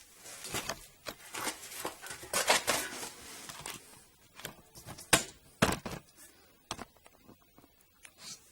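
Metal clinks and knocks from a bolt and tools being handled while fitting the bottom bolt through the rear strut's lower mount, with a few louder sharp knocks partway through.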